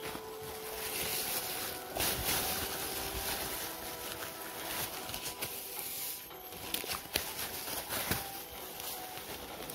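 Plastic bags rustling and crinkling as they are handled right against a chest-mounted phone, with clothing brushing over the microphone, in irregular noisy bursts.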